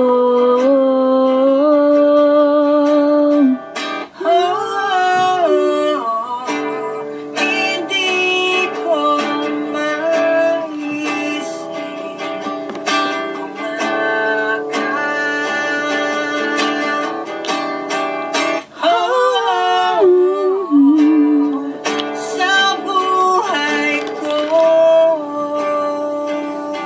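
A song sung to an acoustic guitar, the guitar strummed and plucked under a singing voice that holds and slides between notes.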